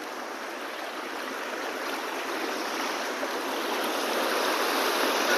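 Stream water rushing, a steady noise that grows louder throughout.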